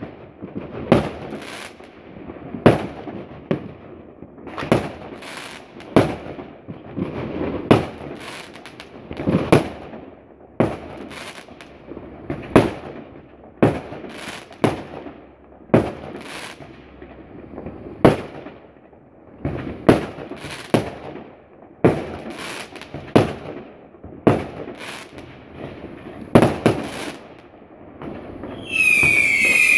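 Fireworks going off in a rapid series, a sharp bang about every second with crackle between the bursts. Near the end a loud, shrill wavering whistle sets in.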